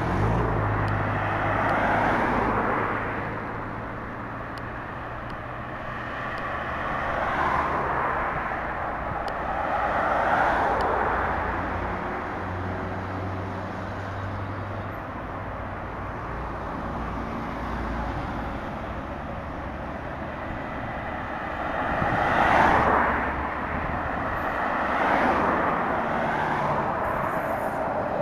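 City road traffic: cars, vans and trucks going by one after another, each passing as a swell of tyre and engine noise that rises and fades, over a low engine hum that lasts through the first two-thirds. Near the end a tram approaches on the tracks beside the road.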